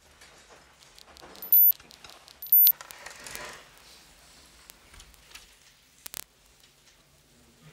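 Experimental soundtrack sounds: sparse crackles and rustling clicks, cut by two short, very high beeps about a second apart, which are the loudest sounds, then a brief rushing swell.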